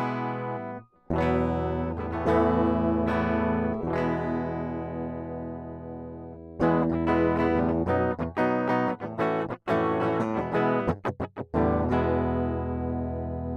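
Electric guitar fitted with ToneRider Classics Alnico 2 pickups, played direct into an audio interface with no effects. Strummed chords are left to ring, then comes a run of short, choppy strums, and it ends on a chord left to ring out.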